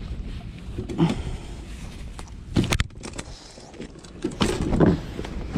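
Steady low rumble of wind on the microphone, with a few knocks and rustles of handling as a hook is worked out of a tautog's mouth in a kayak. The sharpest knocks come about two and a half seconds in, and a longer rustle follows near the end.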